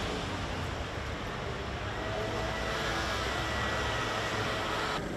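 Steady city street noise: a low traffic rumble under an even wash of background noise.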